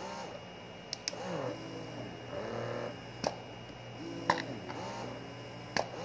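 A Spectra wearable breast pump and an Imani i2 Plus running together in expression mode at level 5. Their motors make a repeating whine that rises and falls with each suction cycle over a steady low hum, with sharp clicks every second or so.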